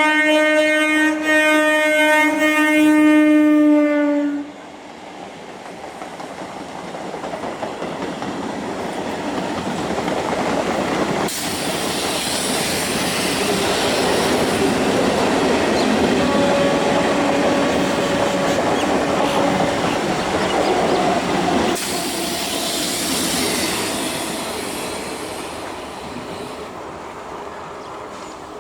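Electric multiple unit (EMU) local train's horn sounding one long steady blast that cuts off about four seconds in. The train's running noise and wheel clatter then build as it passes at speed, and die away near the end.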